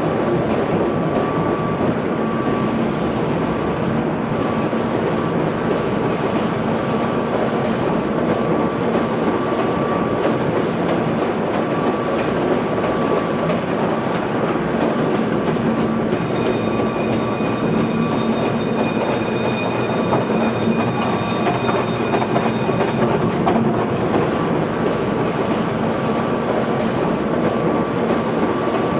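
Steady, dense mechanical clatter and rumble of a running 1,500-horsepower Rice and Sargent cross-compound Corliss steam engine, with a faint steady tone throughout. A few higher steady whining tones join for several seconds past the middle.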